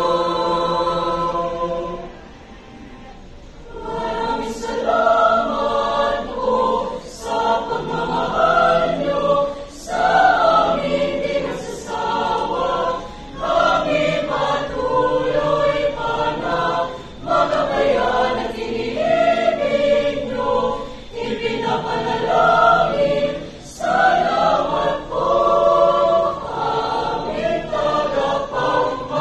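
Choir of young women singing a song in harmony under a conductor, holding a chord, pausing briefly about two seconds in, then going on phrase by phrase.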